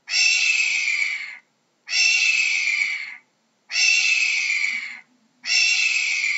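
Hawk screaming: four harsh, raspy screams, each about a second and a half long and sliding slightly down in pitch, repeated a little under two seconds apart.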